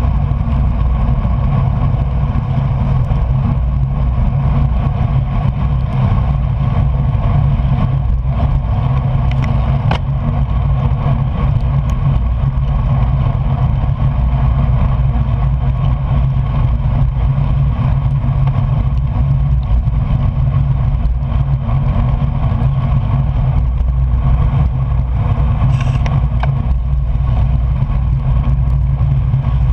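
Steady rush of wind and road noise on a bike-mounted camera while a road bicycle rides at race speed on wet roads, with a few faint clicks.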